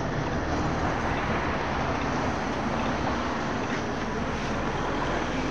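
Steady street noise, mostly the hum of road traffic.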